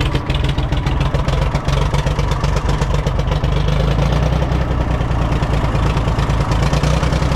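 International 454 tractor's three-cylinder diesel engine running steadily with its air cleaner removed, the usual diesel clatter over a low, even engine note.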